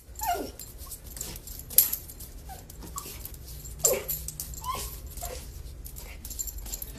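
A puppy giving a string of short, high yips and whines at its own reflection in a mirror, with sharp clicks of its claws scrabbling on a wooden floor.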